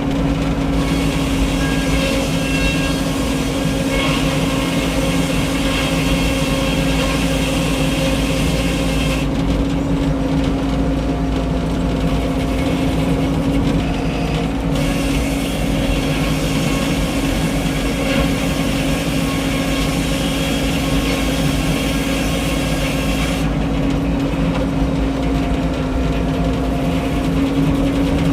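Frick 01-C circular sawmill running steadily with a loud, even drone. A higher whine joins in twice, for several seconds each time.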